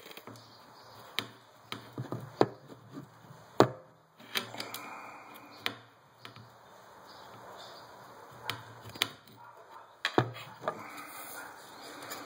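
Irregular sharp knocks and clicks, about ten over the stretch, as a cut length of copper pipe with a soldered fitting is handled and turned close to the microphone.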